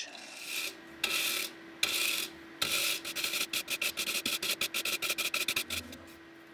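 Wire brush scrubbing the V-grooves of a 3D-printed plastic pulley to clear the burr left in them: three separate strokes, then quick back-and-forth scrubbing about five strokes a second that stops shortly before the end, over a steady faint hum.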